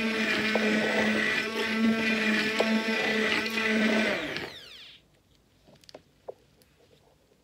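Electric stick blender running steadily, its motor humming as it blends lotion mixture in a plastic jug. About four seconds in it is switched off and winds down with a falling pitch, followed by a few faint ticks.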